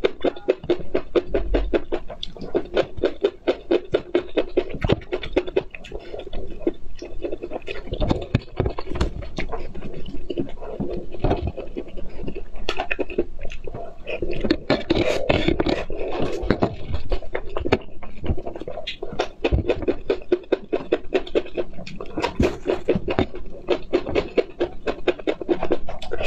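Close-miked eating: chewing with quick, repeated mouth clicks several times a second, and spicy instant noodles slurped later on.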